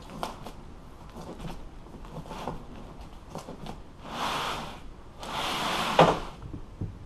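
Staple puller working staples out of a boat seat's vinyl and wooden base: scattered clicks and scrapes, then two longer rasping pulls about four and five seconds in, the second ending in a sharp snap.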